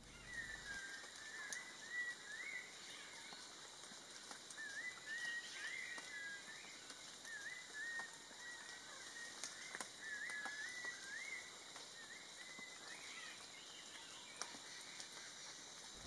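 Forest ambience: a bird repeating short chirping whistles again and again over a steady, high insect drone, with a few faint ticks.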